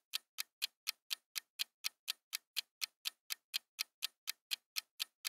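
Ticking clock sound effect of a quiz countdown timer: short, sharp, evenly spaced ticks, about four a second.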